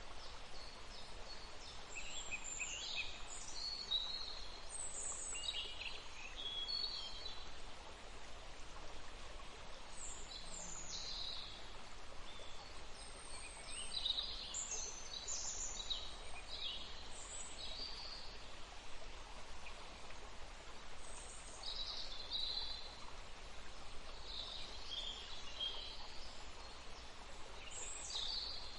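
Small birds chirping and calling in scattered groups of short high notes every few seconds, over a steady hiss of outdoor background noise.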